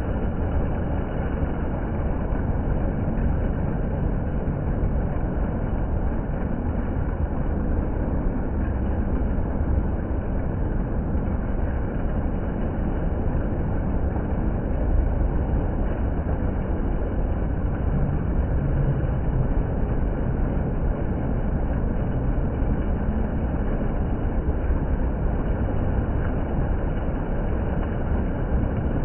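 Water fountain splashing: a steady, unbroken rushing of falling water, heaviest in the low rumble.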